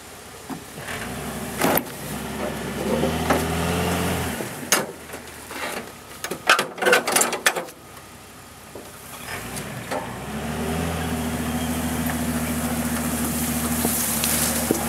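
Jeep engine running, rising and falling in pitch for the first few seconds. Around the middle comes a cluster of sharp knocks and clanks, then the engine runs steadily again from about ten seconds in.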